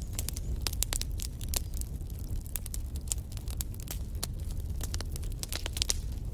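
Wood fire burning in a fireplace, with a steady low rumble and frequent irregular sharp crackles and pops.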